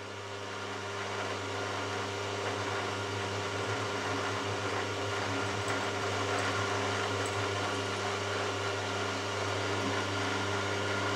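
Milling machine spindle running steadily while a 4 mm twist drill cuts holes in a metal block: a motor hum with a hiss of cutting over it. The spindle switches off right at the end and runs down.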